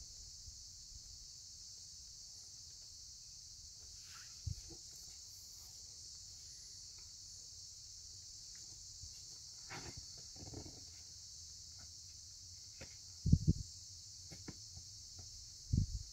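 Steady high-pitched drone of insects, with a few dull low thumps and scuffs scattered through it, the loudest about thirteen seconds in.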